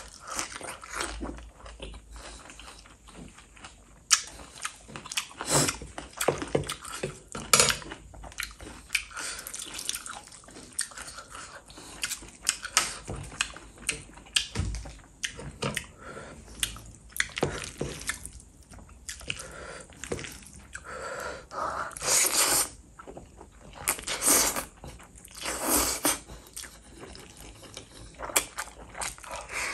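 Close-miked wet mouth sounds of someone eating Korean fire noodles: chewing with many sharp smacking clicks, and a few longer, louder bursts in the second half.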